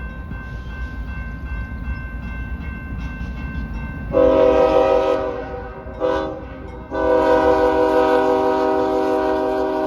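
Freight train's diesel locomotives rumbling past while the air horn sounds a loud multi-note chord: a long blast about four seconds in, a short blast, then another long blast that holds. The long-short-long run fits the tail of the standard grade-crossing horn signal.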